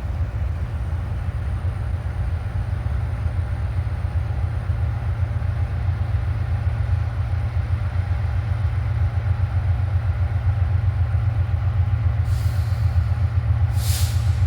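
Three diesel locomotives at the head of an intermodal freight train running as they approach, a steady low engine rumble that slowly grows louder. Two short hisses sound near the end.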